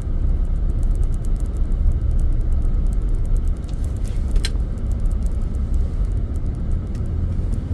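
Road noise inside an all-wheel-drive Chevrolet Suburban driving through deep snow: a steady low rumble of engine and tyres, with faint scattered ticks and one sharp click about four and a half seconds in.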